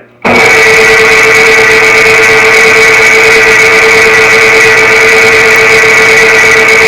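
A heavy-duty drill press/mill machine running at a constant speed while center-drilling a chromoly steel bar. It starts abruptly just after the start and gives an even, loud hum with a high whine.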